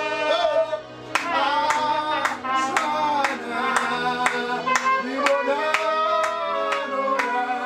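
Live band music: a man singing over electronic keyboard and trumpet, with hand claps keeping the beat about twice a second from about a second in.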